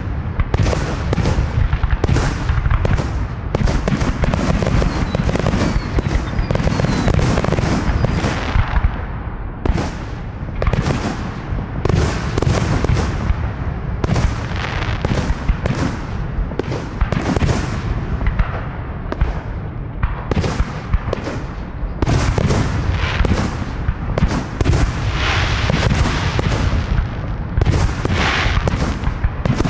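Fireworks display: aerial shells launching and bursting in a rapid, near-continuous barrage of booms and crackles.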